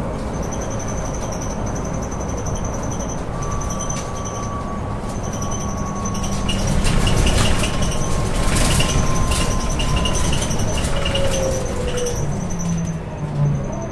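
Mercedes-Benz OC500LE CNG bus with a ZF Ecomat 6HP502 automatic transmission running along. A thin transmission whine drifts slowly down in pitch, and the noise grows loudest midway, then eases off.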